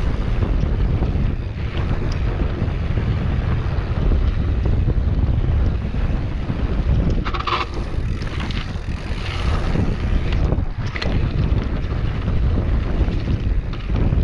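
Wind buffeting the rider-mounted camera's microphone as a mountain bike rolls fast down a dirt forest trail, with a steady rumble of tyres and bike rattle underneath. A brief sharper clatter comes about seven seconds in, with smaller ones a few seconds later.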